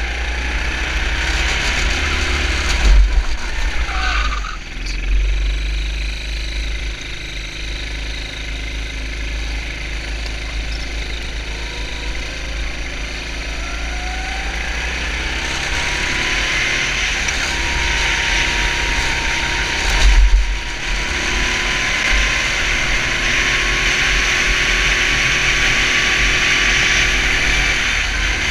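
Onboard sound of a 250 cc four-stroke kart engine under a steady rush of wind noise. It drops in pitch a few seconds in, then climbs back up through the revs and holds high. Two sudden loud jolts come about three seconds in and again about twenty seconds in.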